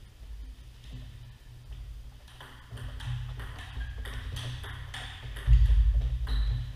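Table tennis rally: the ball clicking sharply off the paddles and the table in quick succession, starting about two seconds in, over low thuds that are loudest about five and a half seconds in.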